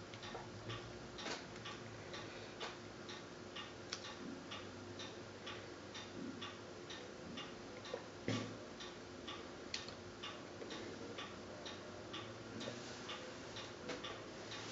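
Faint clock ticking, a quick even tick-tock, with one duller knock about eight seconds in.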